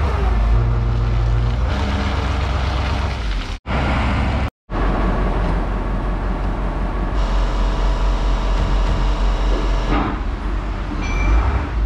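Forklift engine running steadily while it carries a large sandstone boulder onto a stone saw's bed. The sound breaks off briefly twice, a little over three seconds in and again about a second later.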